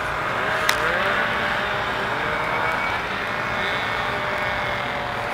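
Vintage snowmobile engines running in the distance: a steady drone whose pitch slides slowly up and down. There is one sharp click under a second in.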